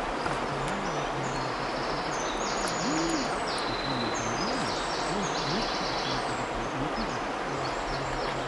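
Steady rush of flowing river water, with a bird's low calls repeating irregularly, each a short rise and fall in pitch.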